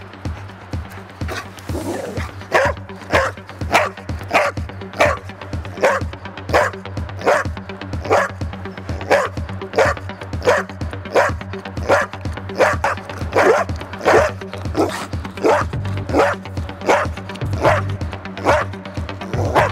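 Belgian Tervueren search-and-rescue dog sitting and barking over and over, about three barks every two seconds, starting about two seconds in: the bark alert that signals it has found the missing person. Background music runs underneath.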